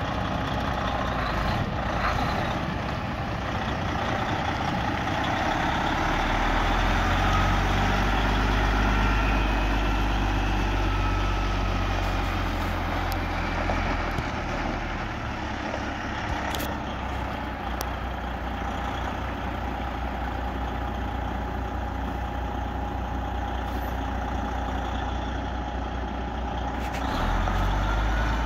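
Diesel engine of a 2015 Freightliner Coronado truck tractor idling with a steady low rumble. The rumble grows louder for several seconds in the first half and again near the end, and two short clicks come just past the middle.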